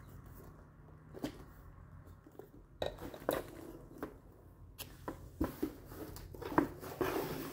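Unboxing handling sounds: packaging and items being moved about, with irregular small knocks, clicks and rustles, the sharpest knock about two-thirds of the way in and a denser rustle near the end.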